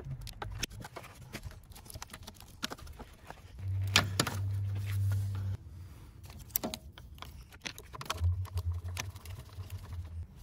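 Scattered clicks, taps and knocks of hands and a screwdriver working on the plastic cover, cables and fastenings in a motorcycle's battery compartment, with the loudest knock about 4 s in. A steady low hum sounds twice, for about two seconds each, about 4 s and 8 s in.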